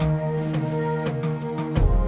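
Instrumental background music, with held notes and a steady run of note attacks.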